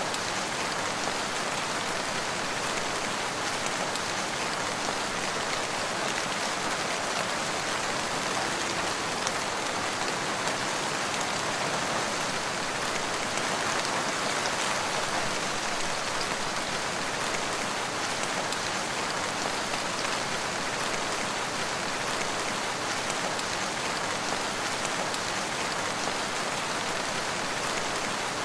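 Steady rain falling, an even, unbroken sound of many drops that neither builds nor eases.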